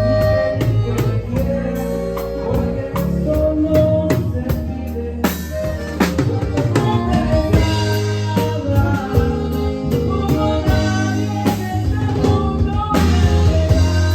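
Norteño band music: held melody notes over a bass line, with a drum kit keeping a steady beat and a singing voice.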